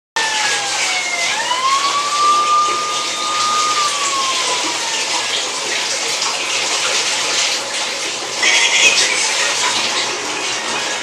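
Water running steadily from a tap or shower, an even rush. In the first five seconds a whining tone rises, holds for a couple of seconds, then slides down and fades.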